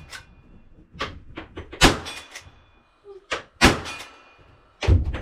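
Gunshots fired in an irregular string about a second apart, several followed by the brief ring of struck steel targets.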